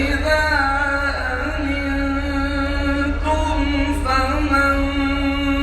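Male Quran reciter chanting in a melodic maqam, holding long notes with ornamented melodic turns and a brief break about three seconds in. A steady low hum runs underneath.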